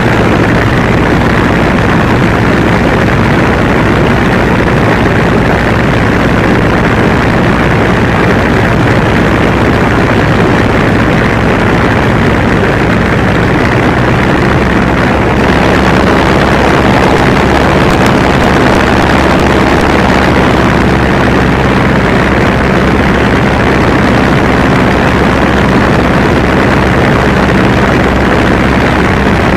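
MWfly B25L 150 hp aircraft engine and propeller running steadily at flight power in a BushCaddy R80, heard close with rushing airflow. The sound gets slightly louder and hissier about halfway through.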